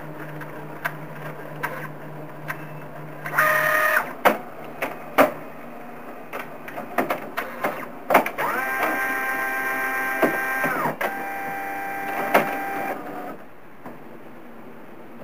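Canon all-in-one inkjet printer's mechanism running: scattered clicks and a short whir, then about five seconds of steady motor whine that steps down in pitch partway through.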